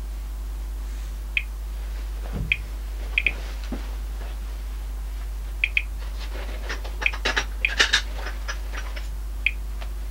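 Thermo Scientific RadEye G-10 gamma survey meter giving short high chirps at irregular intervals, some in quick pairs, each chirp an audible count of detected radiation. The chirps bunch together about seven to eight seconds in.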